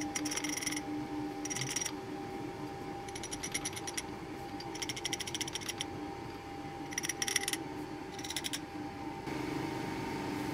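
Small metal lathe being set up by hand: several short runs of rapid clicking as the four-jaw chuck holding a scooter variator pulley is turned and its jaws adjusted with the chuck key, while a dial indicator checks the pulley for runout. A steady hum sits underneath.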